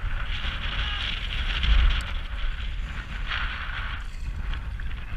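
Wind buffeting the action-camera microphone in gusts, over choppy lake water splashing and lapping against an inflatable kayak.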